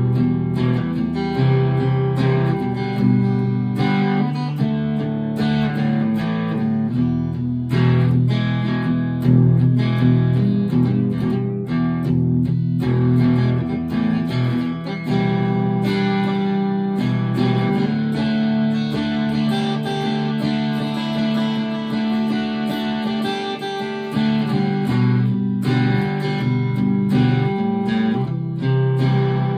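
Fender California Malibu acoustic-electric guitar being played: ringing chords that change every second or two, with picked notes among them.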